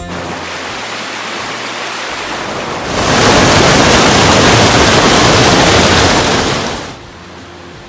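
Mountain stream rushing and splashing over rocks in small cascades. A steady rush that gets much louder about three seconds in and drops back to a softer rush near the end.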